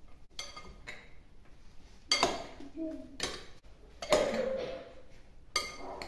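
Metal utensil clinking against a dish: a few faint knocks, then from about two seconds in several sharp clinks, each with a short high ring, roughly a second apart.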